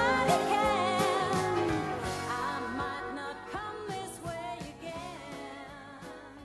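Country song fading out at its end: a voice singing over the band, the music growing steadily quieter.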